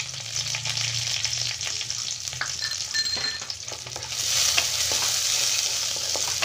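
Chopped onion and garlic sizzling in hot ghee in a kadai, stirred with a wooden spatula that scrapes and taps against the pan. The sizzle grows louder about four seconds in.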